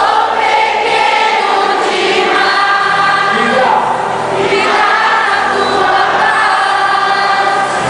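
A group of voices singing a Christian worship song together with band accompaniment, in long held notes over a steady bass.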